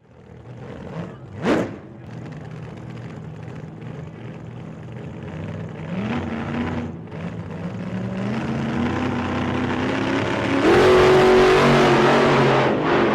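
A car engine revving and accelerating, its pitch climbing in steps and growing louder, loudest near the end.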